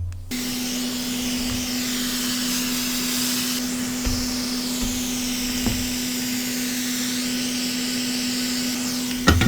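Electric heat gun starting up and running steadily: a fan blowing with a steady motor hum, heating the phone's panel to soften its adhesive. A knock as it starts, and a few light knocks near the end.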